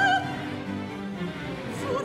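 Opera aria: a soprano ends a held note sung with wide vibrato just after the start, the small baroque band of bowed strings plays on alone, and the soprano comes back in near the end.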